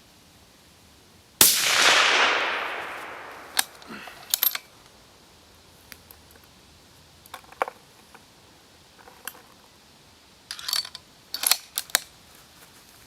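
A single shot from a suppressed 6.5×55 Carl Gustav m/1900 rifle about a second and a half in: a sharp report whose echo dies away over about two seconds. A scattering of short clicks and knocks follows over the next several seconds.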